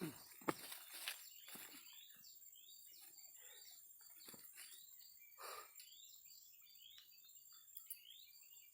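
Faint, repeated short bird chirps, with a sharp click about half a second in and a brief rustle about five and a half seconds in.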